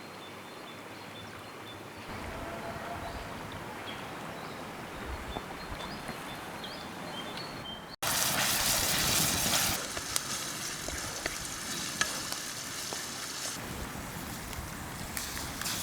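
Food sizzling in a pan over an outdoor cooking fire, with short bird chirps in the background. After a sudden cut about halfway through, the sizzling is louder for a couple of seconds, then settles back with faint scattered crackles.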